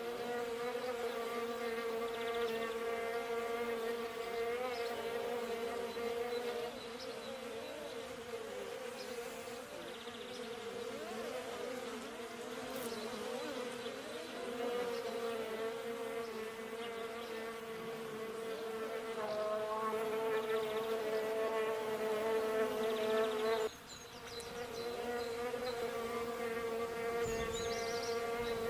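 Bees buzzing: a steady droning hum in which several wavering tones overlap, as from more than one bee. About 24 seconds in it drops suddenly and then swells back up.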